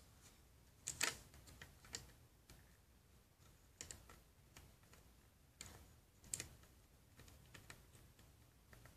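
Faint, irregular small plastic clicks and taps of hands handling a LEGO brick model. The sharpest clicks come about a second in and again around six seconds in.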